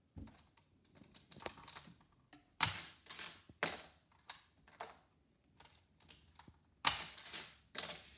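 Irregular clicks and clacks of a plastic Hot Wheels track and die-cast toy car being handled and set up, with a few louder knocks in two clusters.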